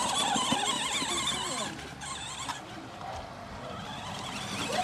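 A small motor whines, its pitch wavering up and down, with voices in the background.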